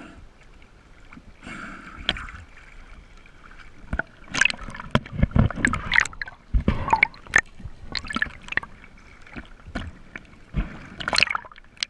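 Seawater splashing and sloshing against a handheld action camera as it dips under the surface and comes back out. Irregular sharp splashes and knocks come thickest from about four seconds in.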